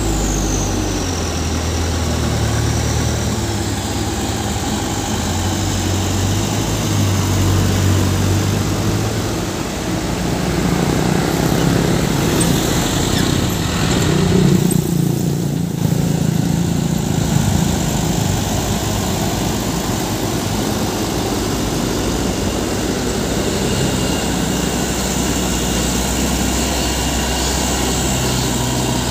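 Diesel engines of loaded light dump trucks running as they drive past one after another, the closest and loudest passing about halfway through. A brief falling high-pitched whine is heard at the very start.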